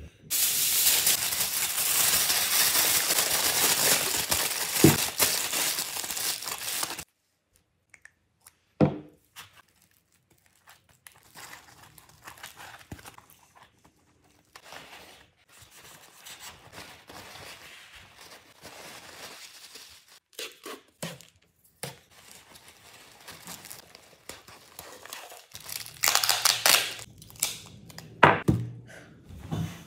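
Aluminium foil being crumpled and pressed into a ball. There are about seven seconds of loud, continuous crinkling, then quieter scattered crinkles and taps, and louder rustling and crinkling again near the end.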